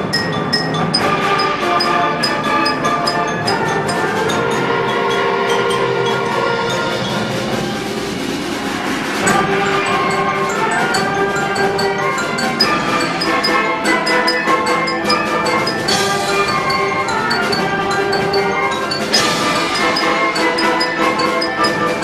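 School concert band playing held brass and wind chords at a steady, full volume, with brief bright swells about nine, sixteen and nineteen seconds in.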